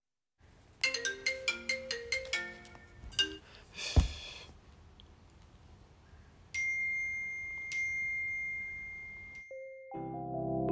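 A smartphone ringtone plays a quick marimba-like melody of about a dozen notes, then a single sharp knock about four seconds in. Later a steady high tone holds for about three seconds, and soft piano background music begins near the end.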